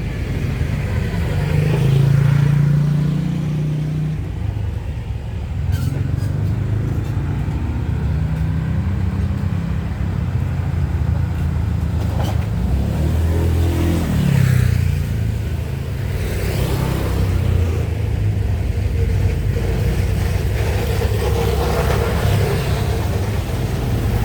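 Road traffic: motor vehicles running and driving past, their engine pitch rising and falling as they pass, with one clear downward sweep about halfway through.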